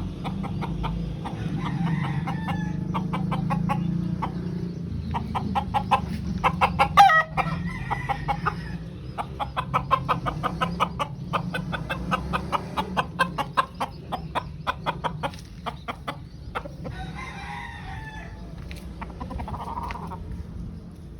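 Cenizo gamecocks clucking in long runs of rapid short notes, with a loud, brief call about seven seconds in and some crowing, over a steady low hum.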